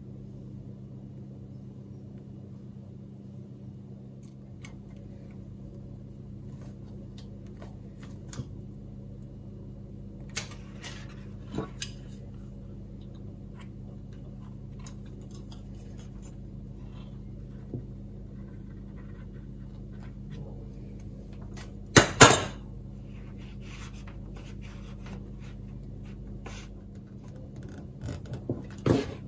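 Scattered clicks and knocks of a utility knife and tape measure being handled on a wooden workbench while coax cable sheath is cut, over a steady low hum. The loudest are two sharp knocks about 22 seconds in and a short cluster of knocks near the end.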